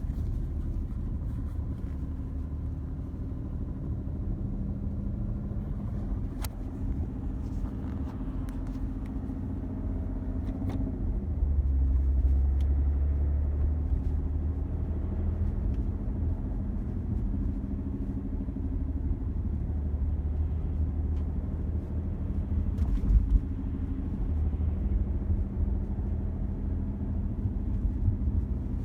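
BMW 525d F10 diesel engine running warm, a steady low rumble with a droning hum, louder for a few seconds near the middle. It carries the strange noise that appears only when the engine is warm and that the owner cannot place: torque converter, engine or gearbox.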